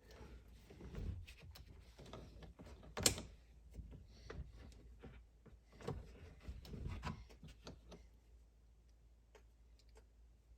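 Scattered clicks, taps and rustles of hands working with wiring and small plastic parts, with one sharp click about three seconds in. The handling goes quieter after about eight seconds.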